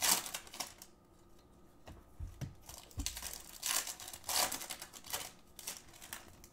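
Foil wrappers of Bowman baseball card packs crinkling and tearing as packs are opened by hand, in several short bursts with quieter gaps between.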